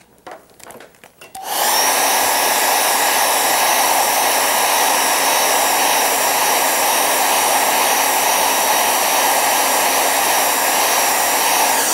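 After a few faint clicks, a hair dryer switches on about a second and a half in and runs steadily at full power, drying a wet watercolour wash. It cuts off right at the end.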